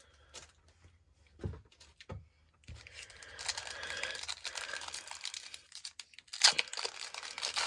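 Foil wrapper of a Pokémon booster pack crinkling and tearing as it is opened by hand, after a couple of soft knocks. A sharp, loud crackle of the foil comes about six and a half seconds in.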